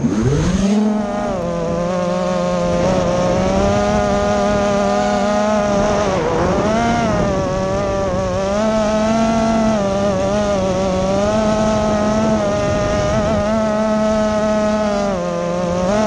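Brushless motors and propellers of a 5-inch racing quadcopter, heard close on its onboard camera: a buzz that climbs in pitch over the first second as it lifts off. It then holds steady, with pitch rising and falling as the throttle changes and a deeper dip about six seconds in.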